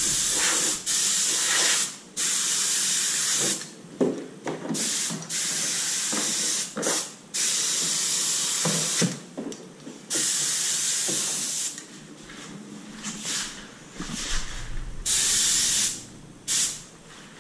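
Spray gun hissing in a series of trigger bursts, each a second or so long, as ceramic coating is sprayed; the bursts grow fewer and shorter after about twelve seconds in.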